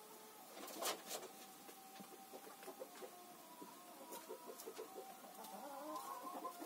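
Hen clucking quietly in strings of short, quick clucks, with two sharp clicks about a second in.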